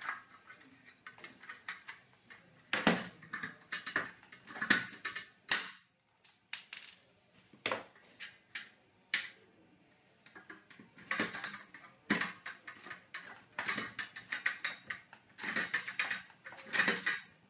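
Hand pop-rivet gun being squeezed on steel trunking: quick runs of ratcheting clicks, broken by several louder sharp snaps as the rivet mandrels break, along with metal clatter from the trunking being handled.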